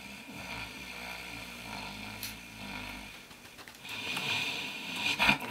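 A man snoring in his sleep, getting louder in the last second or two with a sharp peak near the end.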